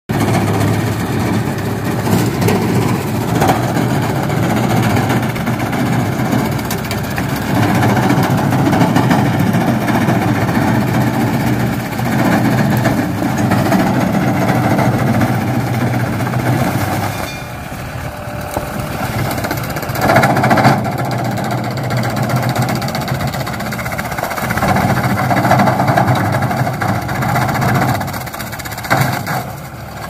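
Tractor engine running steadily while driving a rear-mounted shredder that chops banana stalks, the engine note shifting a couple of times.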